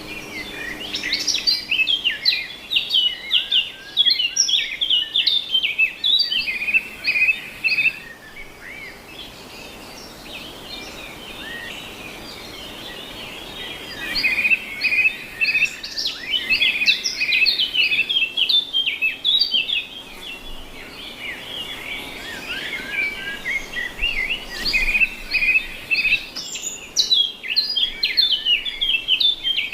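Birds chirping in busy runs of quick, high chirps, with a quieter spell about a third of the way in before the chirping picks up again.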